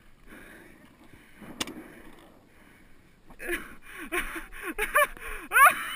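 A single sharp click about a second and a half in, then from about halfway through, paintball players' voices: short shouts and calls, getting louder toward the end.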